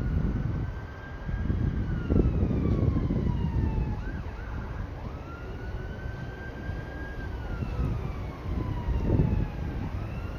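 An emergency vehicle siren wails in slow cycles, rising, holding and then falling in pitch, about twice, over the low rumble of freight hopper wagons rolling past.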